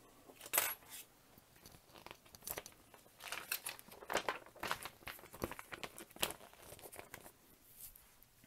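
Thin plastic parts bags crinkling and rustling in irregular bursts as they are handled.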